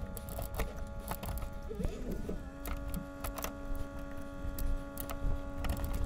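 Utility knife blade scraping and picking at hardened polyurethane construction adhesive in a wooden chair's leg joint: a run of small irregular clicks and scrapes as the glue has not yet released. A steady hum comes in about two and a half seconds in.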